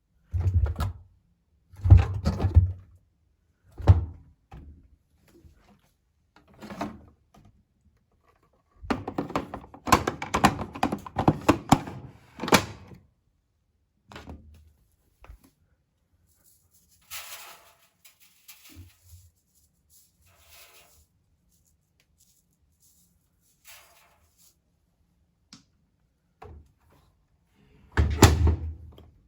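Thunks and knocks from parts of a washing machine being handled during cleaning, such as its door or detergent drawer. There are a few separate knocks, then a burst of clattering about ten seconds in, a faint hiss, and one last thunk near the end.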